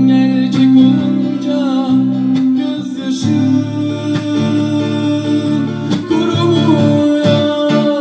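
Live band music from keyboard and electric guitar, with a man's voice singing at times, in a Turkish pop song.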